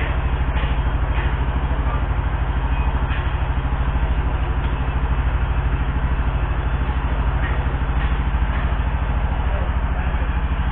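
An engine idling steadily with an even low throb, with a few faint knocks and clinks on top.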